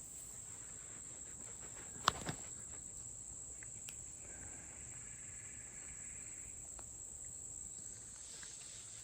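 Steady high-pitched chorus of crickets and other insects in the woods, with a single sharp click about two seconds in.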